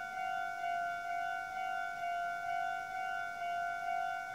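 Japanese railway level-crossing warning bell ringing: a steady, bright electronic tone that pulses about twice a second.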